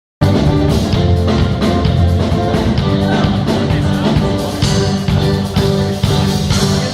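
Music with guitar and a steady beat, starting abruptly just after the opening.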